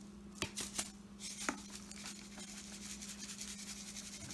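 A few sharp clicks, then a seasoning shaker shaken quickly and steadily, the fine granules pattering onto the pasta salad, over a steady low hum.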